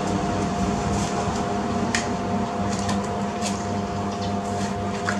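A steady machine hum with a constant low drone and a fixed higher tone over a hiss, broken by a few light clicks, one about two seconds in and one near the end.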